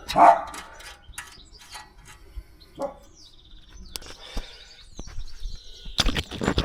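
Small birds chirping in short falling notes, over scattered clicks and knocks of hand tools during car repair work. It opens with a loud knock, and a quick run of ratchet clicking starts near the end.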